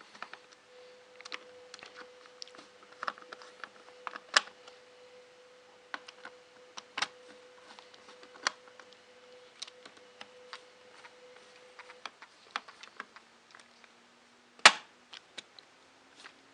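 Scattered small clicks and taps from hands working on the opened ZX Spectrum+ computer's plastic case and parts during reassembly, with one sharp louder knock near the end.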